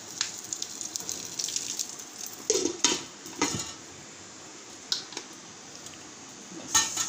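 Oil poured onto a hot coal sizzling and crackling to make smoke, then a glass pot lid clattering down onto the metal pot with three knocks, and another knock near the end.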